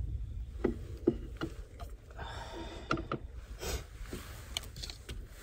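Light clicks and knocks of a spoon, avocado and plate handled on a wooden cutting board, with a short scraping rustle about two to three seconds in. A steady low rumble runs underneath.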